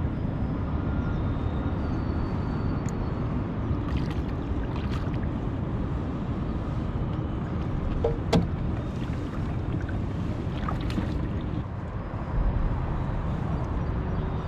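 Steady low rumble of open-air background noise, with a few sharp clicks and knocks from fishing gear on a kayak, the loudest about eight seconds in.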